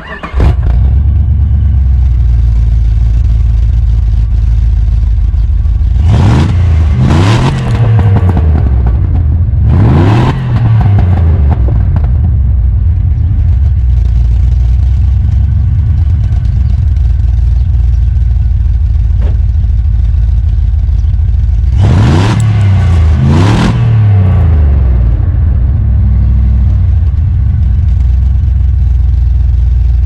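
Jeep Grand Cherokee ZJ's 5.2-litre V8 firing up right at the start and settling into a steady idle, heard close to the exhaust from under the rear. It is revved in quick blips a few times, around six to eleven seconds in and again around twenty-two seconds, the pitch rising and falling back to idle each time.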